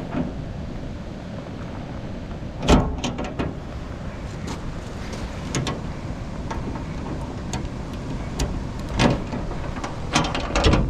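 Metal clicks and clanks as a combination padlock is worked off the hasp of a steel shipping container door and the door's locking-bar handles are taken hold of, over steady wind and rain noise. The loudest clank comes about three seconds in, with another near nine seconds and a quick run of clanks near the end.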